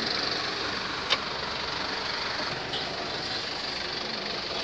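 Vehicle engine idling, heard from inside the cab, with one sharp click about a second in.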